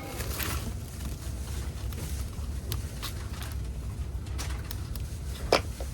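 Train station ambience: a steady low rumble with scattered light clicks, and one sharp knock about five and a half seconds in.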